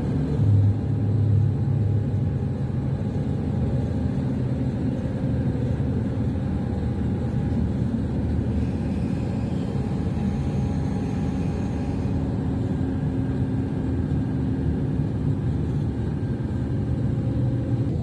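S-Bahn electric commuter train running, heard from inside the carriage: a steady low rumble of the wheels on the track, swelling briefly about a second in.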